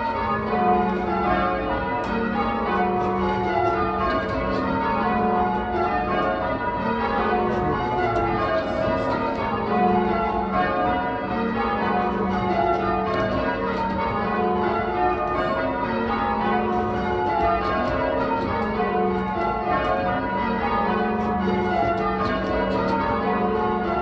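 A ring of eight church bells (14 cwt tenor, tuned to F#, mostly Taylor castings) rung full-circle by a band, striking one after another in a steady, continuous sequence, in rounds before any changes are called.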